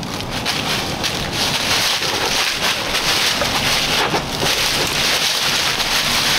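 Wind gusting through the woods: a steady rushing hiss that swells and dips, with wind buffeting the microphone.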